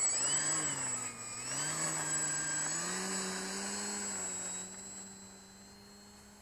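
Electric motor and propeller of a Parkzone S.E.5a RC plane at takeoff power. Its pitch rises and falls with the throttle for about three seconds, then holds steady over a constant high whine. The sound fades from about two thirds of the way in.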